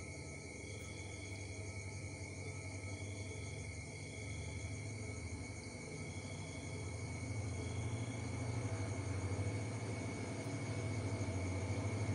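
Crickets and other night insects trilling steadily, with slow pulsing chirps in the first part. Under them a low diesel rumble from an approaching locomotive grows louder through the second half.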